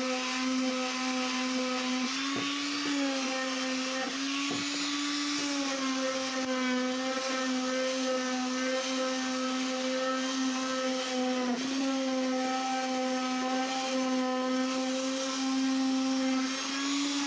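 Electric orbital sheet sander running steadily on a pine (palochina) board: a constant motor hum whose pitch shifts slightly a few times, about two seconds in, around four to six seconds and near twelve seconds, as it is pressed and pushed along the wood.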